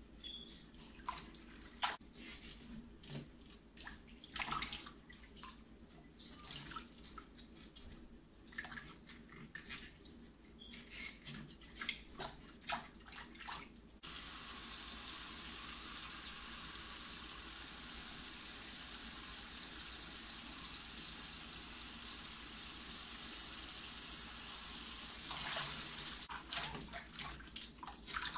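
Hands swishing and splashing bok choy leaves in a stainless steel bowl of water, in scattered sharp splashes and drips. About halfway through a faucet starts running steadily into the bowl, and the splashing of hands in the water comes back near the end.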